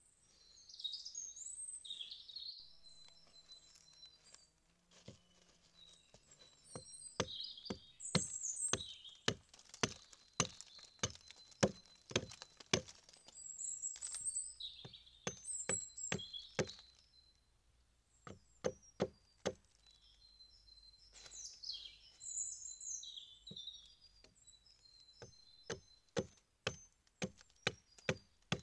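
Hatchet chopping the end of a branch into a point on a log: two runs of sharp wooden strikes, about two a second, with a short pause between them. Birds chirp in between.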